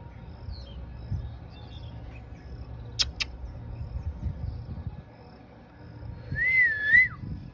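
A pet parrot gives a short whistled call that rises and falls near the end. Before it come a low rumble and a couple of sharp clicks about three seconds in.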